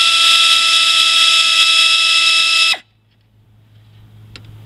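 Compressed-air blow gun blasting: a loud, steady hiss with a whistling tone that cuts off abruptly about three seconds in.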